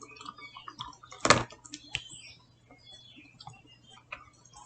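Small plastic toy pieces being handled: scattered light clicks and taps, with one sharper knock a little over a second in.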